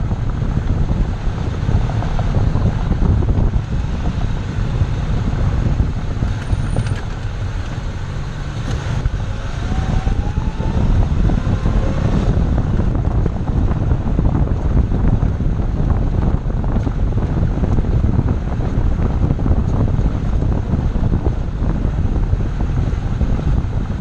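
Car on the move with heavy wind buffeting the microphone over a steady low road rumble, and a faint rising whine about ten seconds in.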